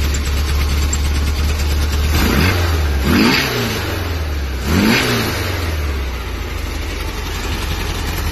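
2110cc air-cooled flat-four of a 1971 VW Baja Bug idling through a homemade quiet-pack exhaust with a Magnaflow turbo-style muffler. It is revved twice around the middle, the pitch rising and falling each time, then settles back to idle.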